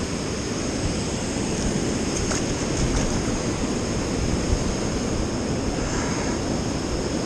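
Steady rush of a fast river pouring over rocky rapids and small falls, with a low rumble underneath.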